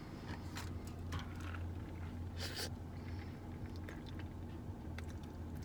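Steady low hum inside a car cabin, with scattered small clicks and handling noises and a short rustle about two and a half seconds in.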